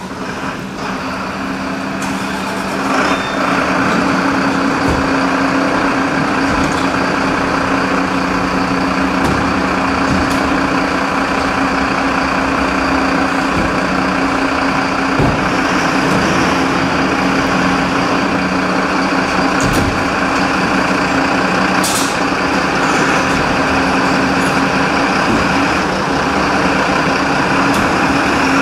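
Heavy fire engines' diesel engines running steadily, building in loudness over the first few seconds, with an occasional short hiss of air.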